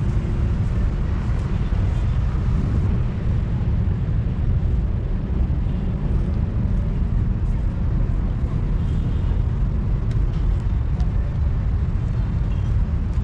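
Steady low outdoor rumble of city background noise.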